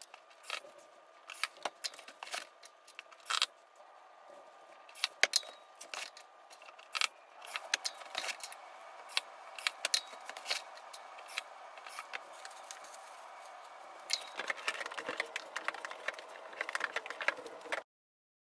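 Assembly clatter from a steel-frame dresser: sharp clicks, knocks and rattles of metal frame parts, boards and screws being handled. A cordless electric screwdriver whirs steadily for several seconds in the middle. The sound stops abruptly near the end.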